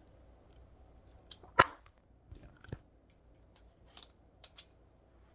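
Hard plastic clicks and knocks of a phone mount being handled, fitted and screwed together. There is one loud snap about one and a half seconds in, then several lighter clicks spaced irregularly.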